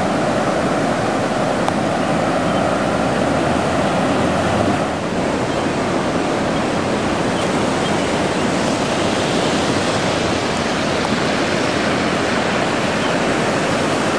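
Floodwater rushing steadily, a dense continuous rushing noise that eases slightly about five seconds in.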